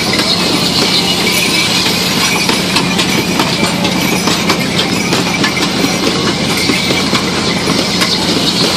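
Kiddie pony-cart ride turning: the wooden carts on spoked wheels and their metal horses rattle and clatter steadily, over a constant low hum.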